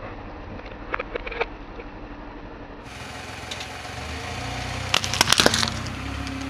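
Car tyre rolling over a plastic cup, a few crackles about a second in, with the low hum of the car's engine underneath. A row of ripe passion fruits is then crushed under the tyre: a quick burst of loud cracking and popping near the end.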